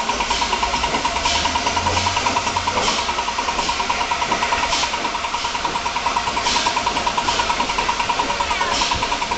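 Steam locomotive working a train away from a station, its exhaust beats coming fast and even at about seven a second over a steady hiss, heard from a carriage window.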